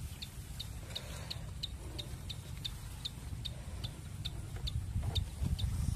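A short, high chirp repeating steadily about two and a half times a second from an animal calling outdoors, over a low wind rumble on the microphone that grows louder near the end.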